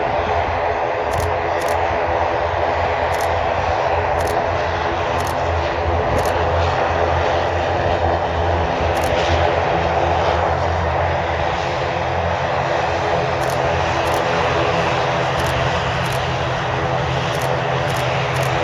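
The twin Pratt & Whitney PW127 turboprop engines of an ATR 42-600 running steadily at taxi power: an even drone of many stacked propeller tones.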